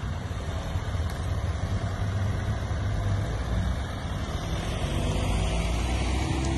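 Ambulance van's engine running as it drives slowly past close by, its pitch rising over the last couple of seconds as it speeds up and pulls away.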